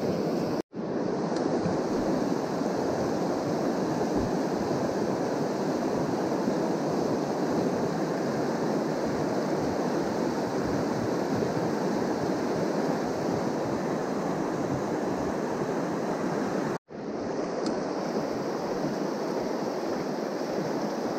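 Fast river rapids rushing over rocks, a steady even rush of water. It cuts out abruptly to silence for a moment twice, just under a second in and about three-quarters of the way through.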